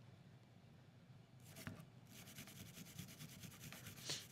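Metal cleaning brush scrubbing the solvent-wetted cylinder of a Taurus 856 revolver in quick, even back-and-forth strokes, working carbon and lead fouling off the cylinder face. The strokes are faint, pause at first, and pick up again about two seconds in, with one sharper scrape near the end.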